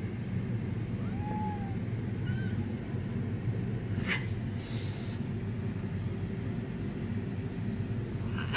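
A steady low rumble, with a faint short cat meow about a second in. About four seconds in there is a brief click, then a short hiss of noise.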